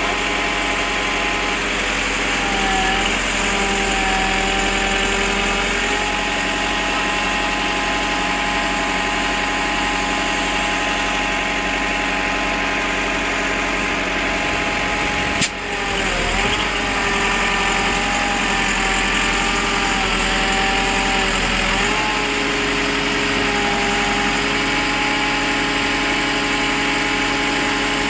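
An engine running steadily, its pitch dipping and recovering briefly a few times, with a single sharp click about halfway through.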